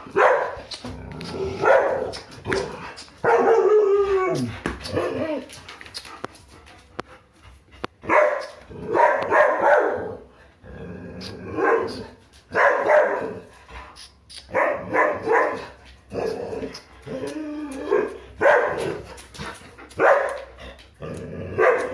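A pet dog 'talking': a run of drawn-out barks and yowls that bend up and down in pitch, one after another with short pauses, like a dog arguing back.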